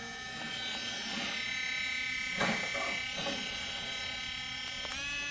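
Small cordless rotary tool motor running with a steady high whine. Near the end its pitch steps up, as when the tool is switched to a higher speed.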